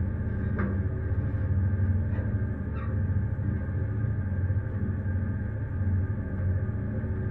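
Research ship's engine running with a steady low drone. A few brief higher-pitched sounds come through over it, about half a second in and again around two to three seconds in.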